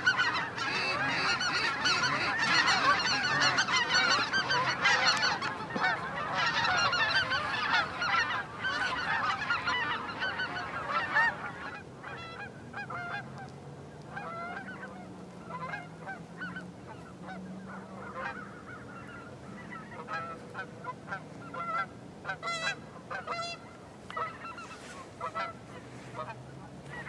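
A large flock of geese honking in flight: a dense chorus of many overlapping calls for roughly the first eleven seconds, then thinning to scattered single honks.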